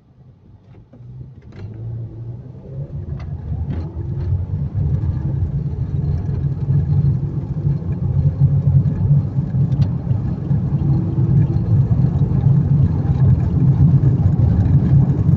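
Car engine and road rumble heard from inside the cabin, growing louder over the first few seconds as the car pulls away and picks up speed, then running steadily. A few faint clicks come early on.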